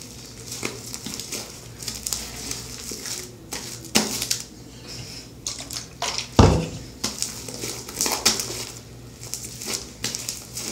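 Fluffy, air-bubbled slime being stretched, squeezed and tossed between the hands, giving irregular squishing and crackling. Two sharp impacts stand out, about four and six seconds in, the second the loudest.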